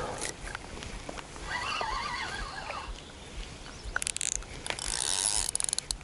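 Feeder spinning reel being wound in, heard as high whirring bursts with rapid fine clicks about four seconds in and again over the last second or so.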